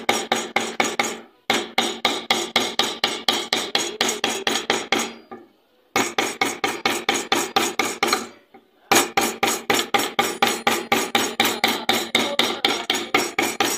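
Hammer tapping a steel pin to drive a new water pump seal into its seat: quick, sharp metallic taps, about four to five a second. The taps come in several runs with short pauses between them.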